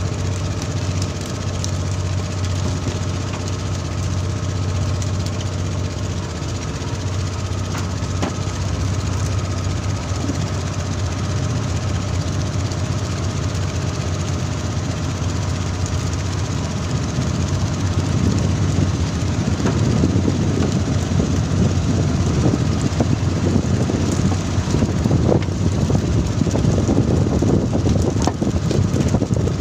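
A fishing boat's engine running steadily, with a steady low hum and overtones. A louder rushing noise joins a little past halfway.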